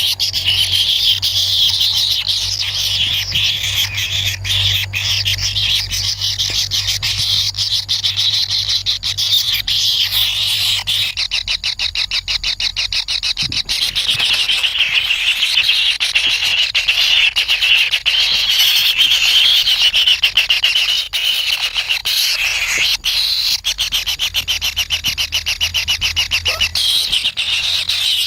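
Kingfisher chicks calling non-stop while they beg for food, a high-pitched, fast ticking chatter.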